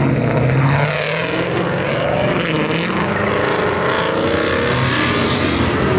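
Loud performance-car exhaust as cars drive through a parking lot, the engines revving up and down.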